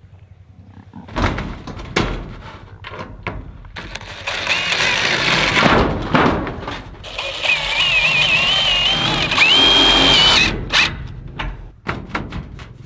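Cordless impact driver driving screws through a galvanized sheet-metal patch on a metal barn roof: two runs of a few seconds each, the motor whine rising and falling. Knocks and taps of handling on the metal roof before and after.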